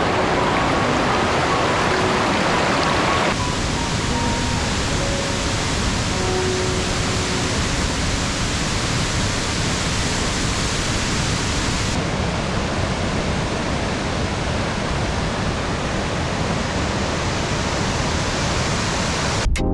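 Rushing water of a waterfall: a loud, steady hiss, whose tone changes abruptly about three seconds in and again about twelve seconds in.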